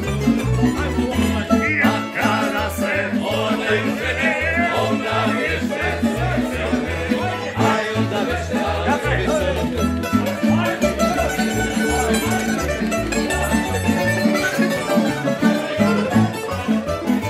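Tamburica band playing a lively kolo tune. Small plucked tamburicas carry a busy melody over a steady, regular bass line from the berde, the tamburica double bass.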